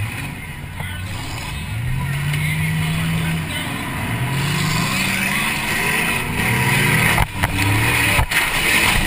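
Demolition derby car's engine revving up and down repeatedly as the car is driven hard, heard from inside the cabin.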